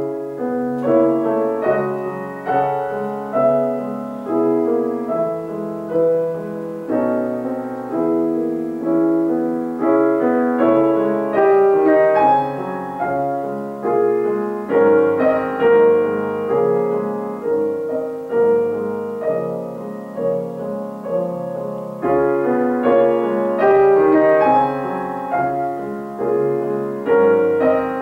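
Grand piano played solo: a classical piece, chords and melody notes struck one after another, beginning abruptly right at the start.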